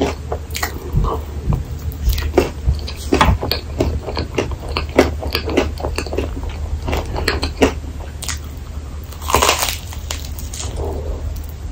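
Close-miked eating sounds: wet mouth clicks and chewing of whipped cream and a crispy rice waffle. About nine and a half seconds in comes a louder, crunchier bite into the cream-filled waffle.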